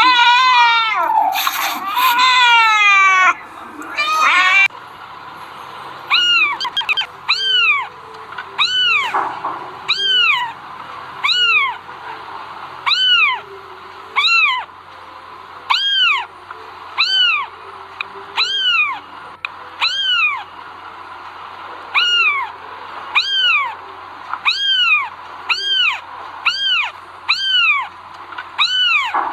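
A cat meowing over and over, about once a second, each meow rising and then falling in pitch. The first few seconds hold a run of louder cries that fall in pitch.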